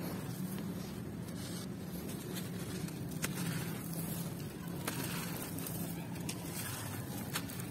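Hands scooping, crushing and pouring dry gritty sand and gravel, with grit trickling and crunching through the fingers and a few sharp clicks of small stones. A steady low hum runs underneath.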